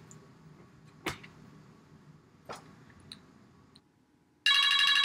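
A few soft taps while a number is dialled on a smartphone, then about four and a half seconds in a mobile phone starts ringing loudly, a bright trilling ringtone.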